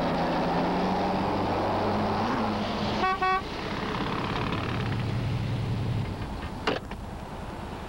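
A car running in street traffic, with a car horn sounding two short toots in quick succession about three seconds in. A short sharp knock comes near the end.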